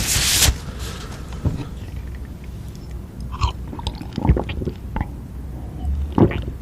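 Close-miked chewing of food, with scattered wet clicks and smacks of the mouth. There is a brief loud rustle at the very start.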